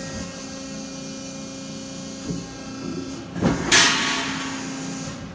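Piranha 175-ton hydraulic CNC press brake cycling through a bend: a steady hum from the machine, with a short knock and then a loud hissing rush about three and a half seconds in that fades away.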